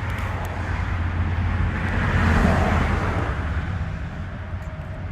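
A vehicle passing on a road: its noise rises and fades, loudest about two and a half seconds in, over a steady low rumble.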